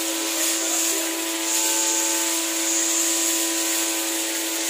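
Tap water running and splashing as hands rub and rinse pieces of tumbong (intestine) over a bowl, over a steady mechanical hum.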